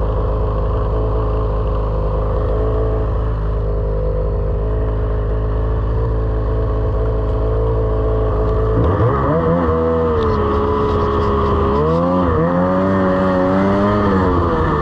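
Lynx RS 600 snowmobile engine running at a steady pitch; about nine seconds in the throttle opens and the pitch climbs, dips briefly near the end and climbs again as the sled accelerates.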